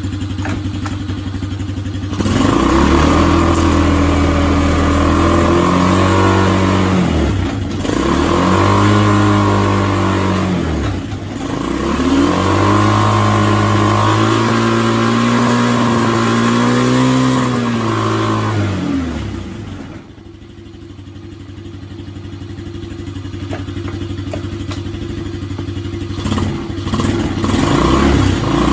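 Air-cooled engine of a KXD ATV being revved in gear, spinning its wheels. It idles at first, then rises and falls in pitch in three long revs. About twenty seconds in it drops to a quieter, lower running, and picks up again near the end.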